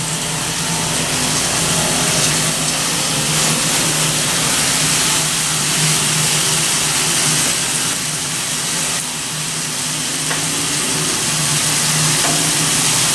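Pork, chicken and hot dogs sizzling steadily on the plate of a Stone-Ware electric grill, with a low steady hum underneath.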